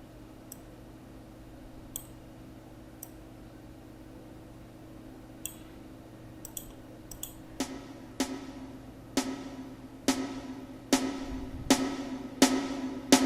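A few mouse clicks, then from about halfway through a programmed snare drum roll plays back from FL Studio: single snare hits come closer and closer together and grow louder, a build-up riser sped along by tempo automation.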